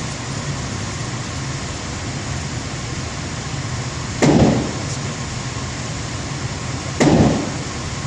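Two gunshots about three seconds apart, the first a little over four seconds in, each a sharp report with a short decay. A steady background hum runs underneath.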